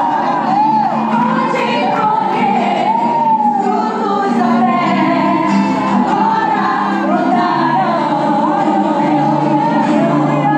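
Gospel song playing: a sung melody over steady sustained accompaniment.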